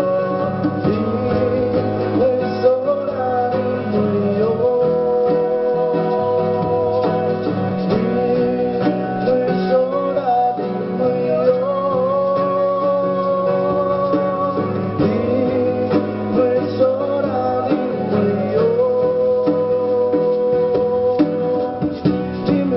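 Music: a song played on plucked acoustic guitar, with singing carrying long held melody notes.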